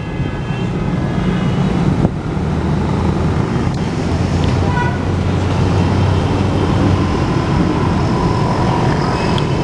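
Road traffic at a railway level crossing: vehicle engines running in a steady low hum that grows a little louder over the first few seconds, with a single sharp click about two seconds in.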